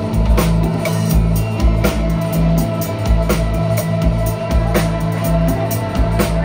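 Live rock band playing an instrumental passage: drum kit with a steady kick-drum pulse and cymbal hits over held bass-guitar notes, with electric guitar and keyboards.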